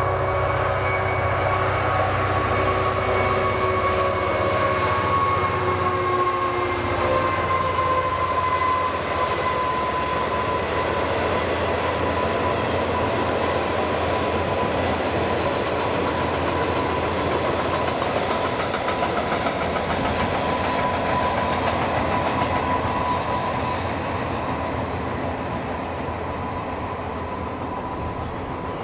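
A diesel freight locomotive passes hauling a long train of covered wagons, its engine note heard first with a steady tone running on above it. After several seconds the engine gives way to the continuous rumble and clickety-clack of the wagons rolling by, which eases off a little near the end.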